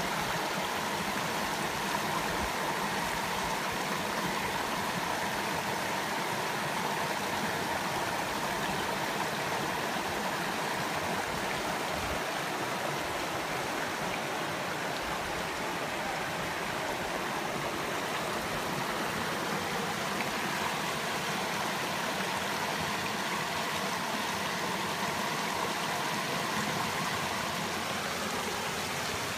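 Small rocky river rushing steadily over a riffle of stones, a constant splashing rush of white water.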